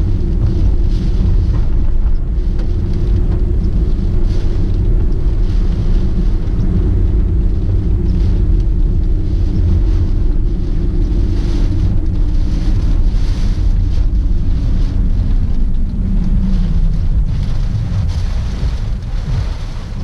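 Heavy wind and rain noise over the rumble of a first-generation Honda Freed on the road, heard inside the car in typhoon weather. A steady drone under the noise falls in pitch about fifteen seconds in.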